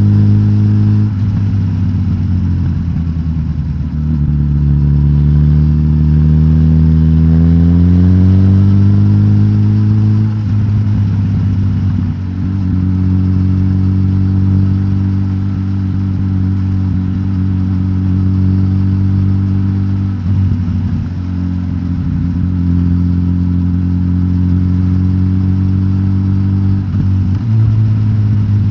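Suzuki GSX-S1000GT's inline-four engine, with the catalytic converter removed and the stock exhaust, running at mostly steady revs. Its note climbs in pitch from about four to ten seconds in, then drops back. There are brief dips in the note about a second in and again around twenty and twenty-seven seconds in.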